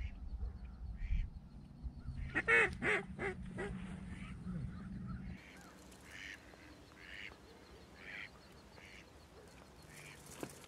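Ducks quacking in a run of short calls, loudest between about two and four seconds in. A low rumble underneath cuts off abruptly about five seconds in.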